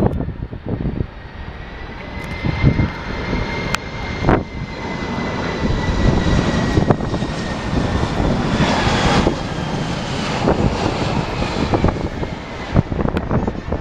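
Jet airliner's engines whining as it comes in to land, the pitch slowly falling, over heavy wind buffeting on the microphone.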